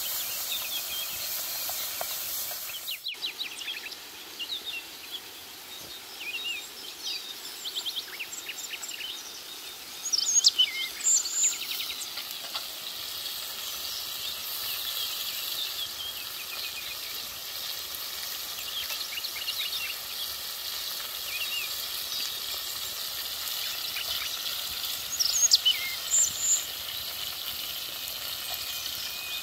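Fish frying in a wide metal pan over a wood fire, a steady sizzle throughout. Birds chirp over it in short bursts, loudest about ten seconds in and again near the end.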